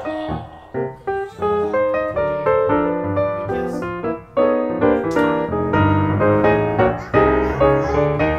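Background piano music: a run of struck notes and chords, each fading after it is played.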